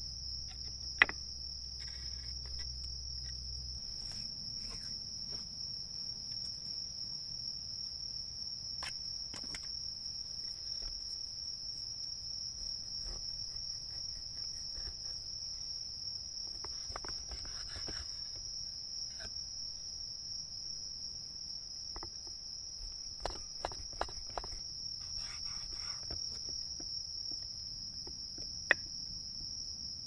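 A chorus of night insects in the forest, one continuous high-pitched trill that never breaks. A few sharp clicks cut in, about a second in, in a short cluster past the middle, and once near the end.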